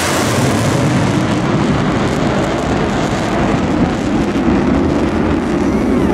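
Jet engines of a USAF Thunderbirds F-16 formation flying overhead: a steady low rumble with hiss, unbroken throughout.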